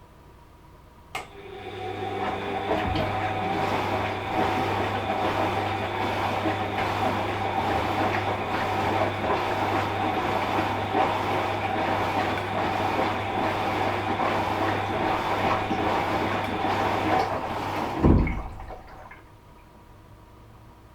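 Washing machine running a stretch of its wash: a click, then the motor hums and turns the drum with water sloshing inside for about seventeen seconds. It stops with a loud thump and runs down to quiet.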